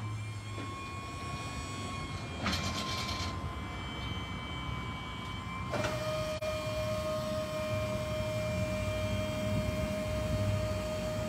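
Steady whine of a car-hauler trailer's hydraulic system over a low hum. About six seconds in the whine drops suddenly to a lower pitch and holds there. A brief hiss comes about two and a half seconds in.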